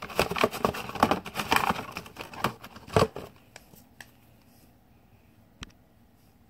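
The plastic dial of a Capsule Chix toy capsule-dispenser box being turned: a rapid run of ratcheting clicks that ends about three seconds in with a louder knock as the plastic capsule drops out. After that, a few faint taps as the capsule is handled.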